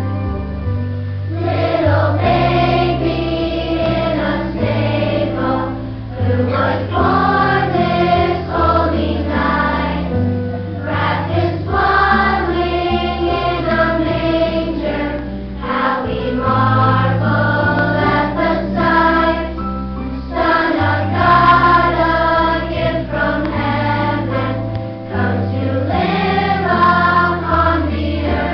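A choir singing a song with an instrumental accompaniment that carries a steady bass line.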